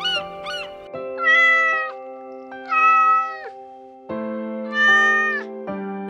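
Three drawn-out animal calls, each just under a second long, over background music with held chords, after a quick run of short falling calls at the start.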